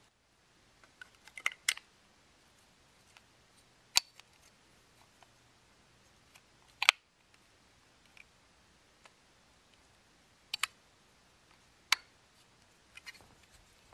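Sharp clicks and taps of plastic and circuit board as the boards of a Kill-A-Watt P3 power meter are handled and fitted back into its plastic case: a quick cluster of clicks about a second and a half in, then single clicks every few seconds, the loudest about halfway through.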